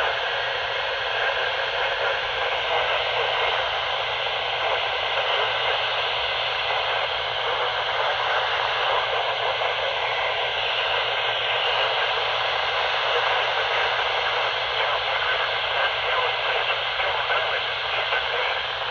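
Steady radio static: an even hiss from a radio receiver with no voice coming through.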